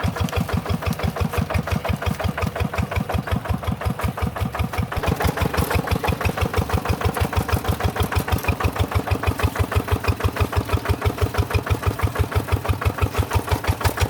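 Tractor engine running with an even, rapid chugging of about five to six beats a second, growing slightly fuller about five seconds in.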